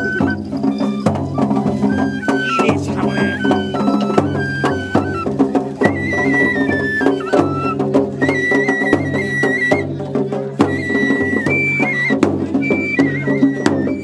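Japanese festival hayashi music: a transverse flute playing a high melody in held notes over drums and sharp, frequent percussion strikes.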